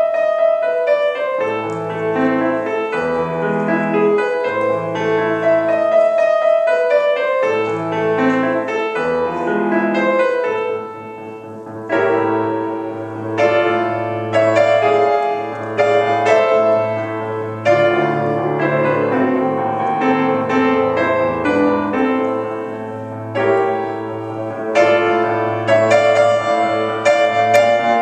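Solo acoustic piano playing classical music: a melody over chords, with a low bass note repeating steadily through the second half.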